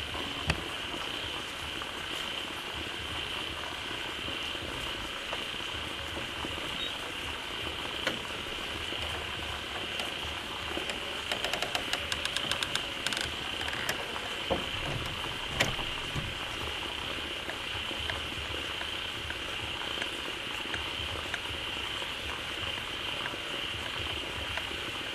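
Dense chorus of frogs calling loudly at a pond, a steady high-pitched drone over the hiss of water falling into the pond. About eleven seconds in, a quick run of a dozen or so clicking calls lasts under two seconds, with a few single sharp ticks elsewhere.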